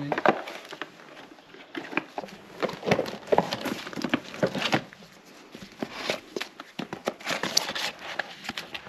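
Handling noise as gloved hands rummage through clothes and small boxes in a suitcase: rustling with irregular light knocks and clicks, and a sharp click at the very end.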